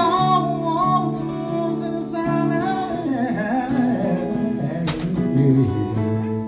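Acoustic guitar accompanying a voice singing a country song, with the sung line wavering in pitch over the first few seconds. A single sharp click comes about five seconds in.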